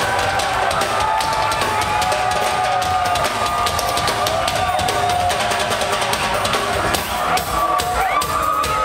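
A live band played loudly through a venue PA and picked up from among the audience. A drum kit beats steadily under long, held melodic tones, with a brief dip in loudness about seven seconds in.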